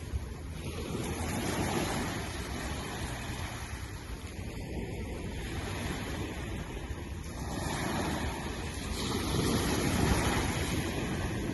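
Sea waves breaking and washing in, a steady rush that swells louder every few seconds as each wave comes in.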